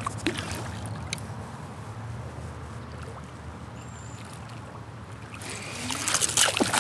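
Hooked smallmouth bass thrashing and splashing at the surface of the river, a loud flurry of splashes in the last second or so, over a steady low rumble.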